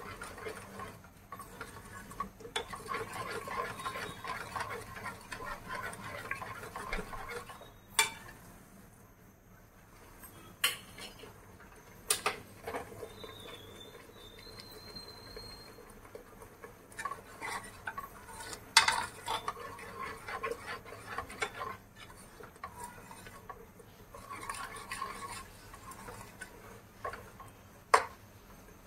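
A spoon stirring and scraping spiced masala as it roasts in a pan, with several sharp clinks of the spoon against the pan.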